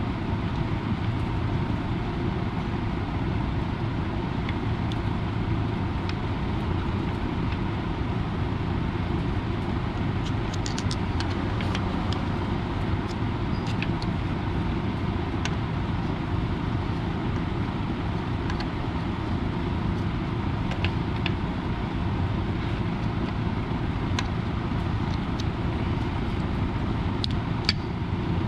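Scattered light metallic clicks of hand tools on the bolts of a BMW engine's rear main seal housing, coming in two spells, over a steady hum and hiss.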